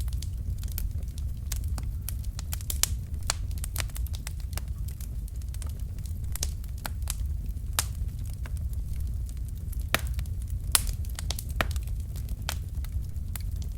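Wood fire burning in a fireplace: logs crackling with irregular sharp pops, several a second, over the steady low rumble of the flames.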